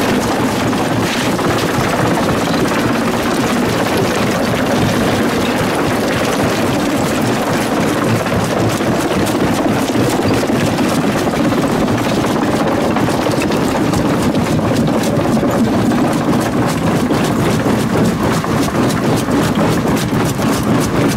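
Lippmann 3862 single-toggle jaw crusher running under load and crushing rock. A steady heavy machine drone carries a rapid clatter of rock knocking and cracking between the jaws, and the clatter grows denser from about halfway through.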